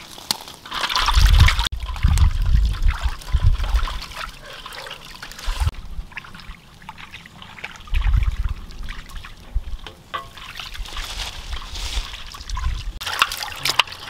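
Water trickling and splashing as eggs are washed by hand in a pan of water. Bursts of low rumble come twice near the start, again around the middle and near the end.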